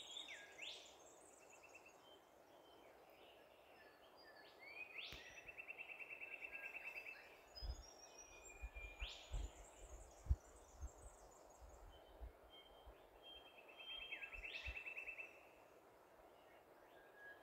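Faint night calls: twice, a rising chirp runs into a rapid trill lasting about two seconds, among scattered higher chirps. A few soft low thumps come in the middle.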